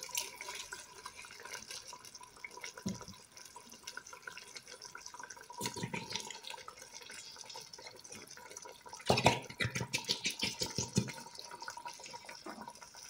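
Thick home-canned fried tomato sauce being scraped out of a glass jar into a steel pot, with wet plops and scraping. A run of quick knocks comes about nine seconds in, over a faint hiss from the hot pot.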